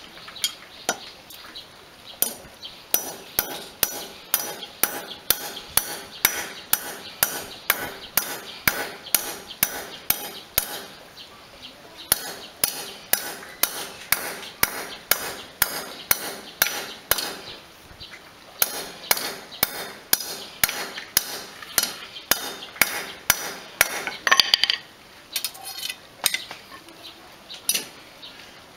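Small hand hammer striking a steel construction rod (rebar) against a sledgehammer head, in sharp metallic blows about two a second with a couple of short pauses, bending the rod gradually into a ring. There is one louder clatter near the end.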